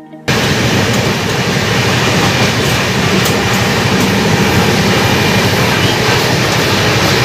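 Howrah–Mumbai Mail passenger coach running at speed: the steady rumble and rattle of the moving train, loud in the washbasin area of the coach.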